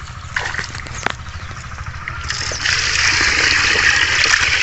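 Water splashing and trickling, growing louder about two seconds in, over a steady low hum.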